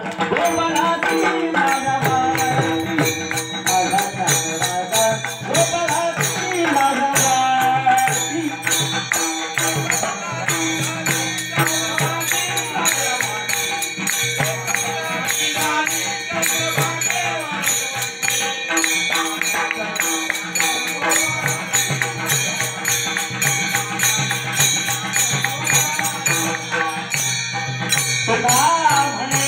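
Kirtan music: voices singing a Marathi devotional abhang over held tones, with small hand cymbals clashing in a steady fast rhythm.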